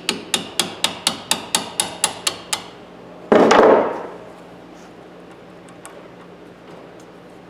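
Hammer tapping a punch to drive the pin out of a ratchet head clamped in a vise: a steady run of sharp metal strikes, about four a second, stopping after about two and a half seconds. Then one louder, longer clatter.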